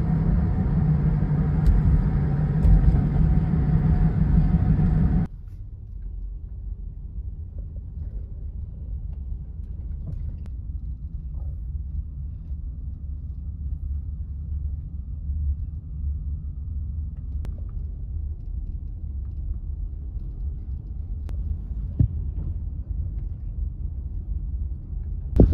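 A car driving on city streets, with a steady road and engine rumble. The rumble is loud and full for about the first five seconds, then drops suddenly to a quieter, lower rumble as the car moves slowly along a street.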